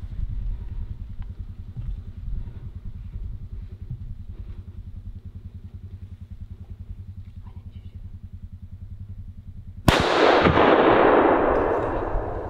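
A single hunting-rifle shot about ten seconds in: a sharp crack followed by a long rolling echo that dies away over two seconds or so. Before it, a low, rapid throbbing runs underneath.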